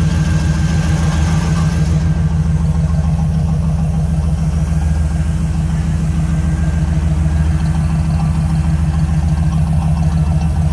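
The 304 V8 of a 1979 Jeep CJ-7 idling steadily, its even exhaust note loud through Patriot short-tube headers and a 2.5-inch stainless thick-wall exhaust built to be loud.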